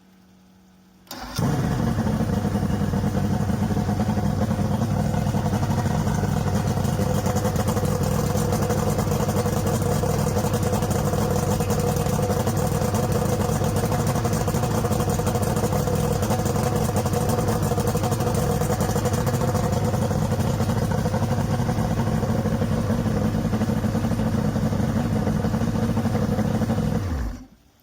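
1987 Johnson GT 200 V6 two-stroke outboard motor, freshly rebuilt and bored .030 over, starting up about a second in and running at a steady speed before cutting off suddenly near the end.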